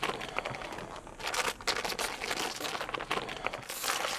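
A foil snack wrapper crinkling and tearing as it is opened by hand, a rapid crackle that starts about a second in and carries on.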